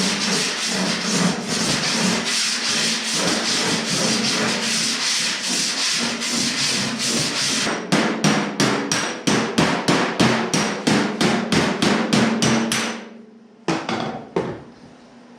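Abrasive rubbing on the steel skin of a car door as it is smoothed after dent repair. It is continuous at first, then breaks into quick back-and-forth strokes about four a second from about eight seconds in, stopping near thirteen seconds with two short strokes after.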